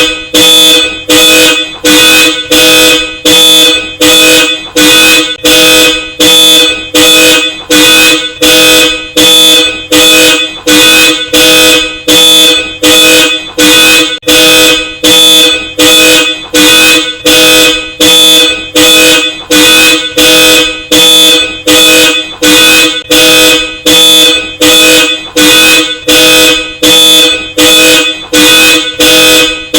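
Car alarm blasting a pair of Hella Supertone dual-tone car horns in a steady pulse, about three blasts every two seconds, each blast holding the same chord with only a short break between.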